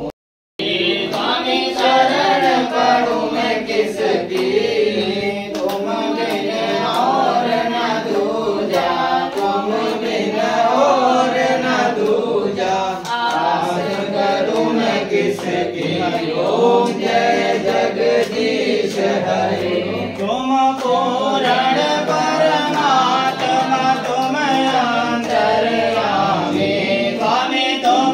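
A group of men and women singing a Hindu devotional hymn together, unaccompanied, with the voices breaking off briefly just after the start.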